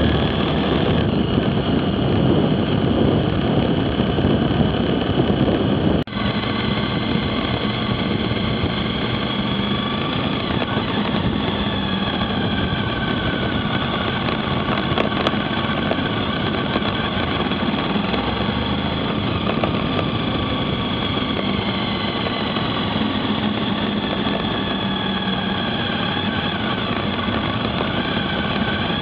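Motorcycle engine running under way, heard from the moving bike, with heavy wind noise at first. About six seconds in the sound breaks off sharply, then the engine goes on at lower speed, its pitch rising and falling with the throttle.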